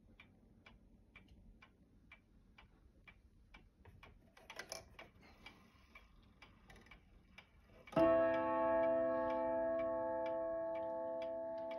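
Kienzle pendulum wall clock ticking steadily, about two ticks a second, with a brief rattle around the middle. About eight seconds in, its gong is struck once and rings on, slowly fading under the continuing ticks.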